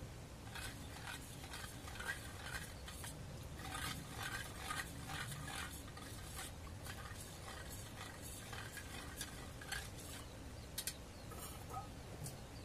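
Thick tomato curry simmering in an open pressure-cooker pot, with faint, irregular bubbling pops over a steady low background.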